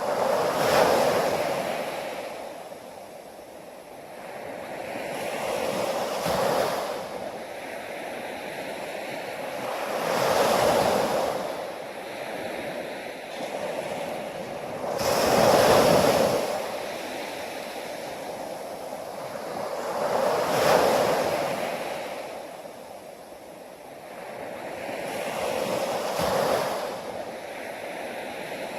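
Ocean waves breaking, the surf swelling and falling away about every five seconds.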